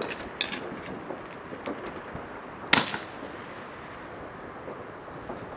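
One sharp firework bang about three seconds in, with a few faint pops near the start.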